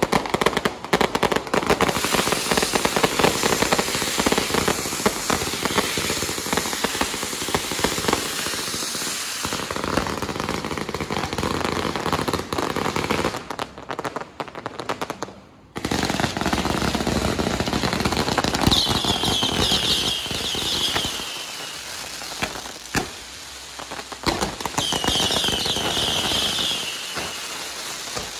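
Firecrackers and aerial fireworks going off in a dense, rapid, continuous crackle, with a short lull about halfway through. In the second half, two shrill falling whistles sound over the crackle.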